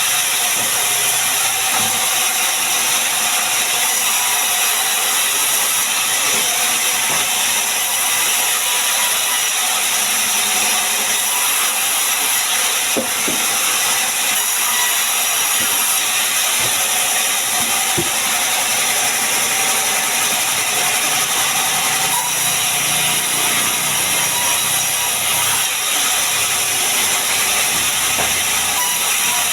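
Sawmill saw running steadily through sengon (albizia) wood: a continuous high-pitched hiss with a couple of faint knocks midway.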